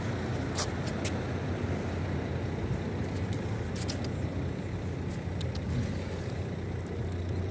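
Steady road traffic noise with a low rumble, and a few light clicks.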